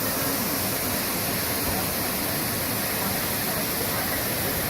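Waterfall rushing steadily, an even wash of falling water.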